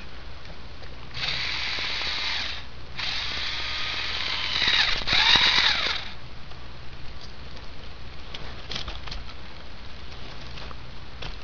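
Lego Power Functions electric motor whirring through plastic gears in two runs, one of about a second and a half and then one of about three seconds; the second run grows louder and drops in pitch near its end as it takes load. A few faint clicks follow.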